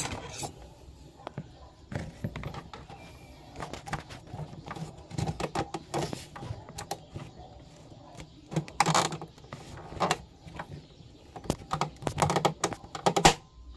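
Hand screwdriver working screws out of a plastic printer casing: an irregular run of small clicks, taps and scrapes as the bit turns in the screw heads and the parts are handled, loudest about nine seconds in and again near the end.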